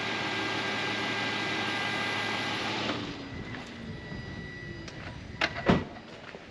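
Infiniti FX35's VQ35 V6 engine idling steadily, then switched off about three seconds in, a falling tone as it winds down. Two sharp knocks follow near the end.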